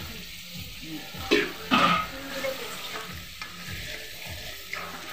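Thick korma sauce sizzling in a karahi while a metal spatula stirs it, scraping through the pan. Two louder scrapes come about a second and a half in.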